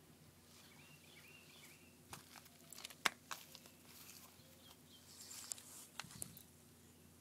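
Quiet outdoor ambience with a faint steady hum, a few sharp clicks and taps (the loudest about three seconds in, more around five to six seconds), and faint bird chirps about a second in.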